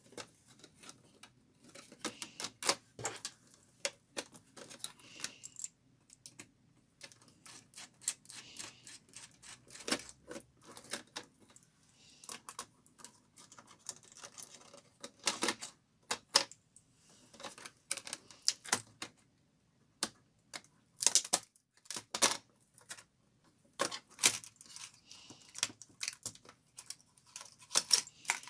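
Dell Studio 1535 laptop keyboard being pried out of its plastic bezel and lifted by hand: irregular clusters of sharp plastic clicks and snaps, with keys clattering as it is handled.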